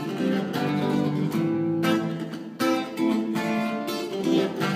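Acoustic guitar strumming chords, a fresh strum about every second or so with the chords ringing between.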